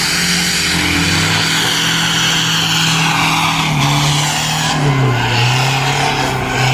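Off-road vehicle's engine running hard, its pitch dipping and rising a few times, under a steady loud hissing rush.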